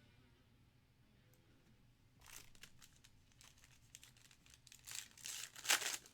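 A trading-card pack wrapper being torn open and crinkled by hand, in irregular crackling bursts that start about two seconds in and are loudest near the end.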